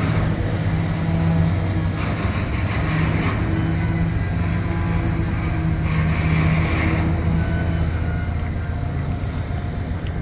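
Union Pacific diesel locomotive running with a steady low drone. Two short bursts of hiss come through about two seconds in and again about six seconds in.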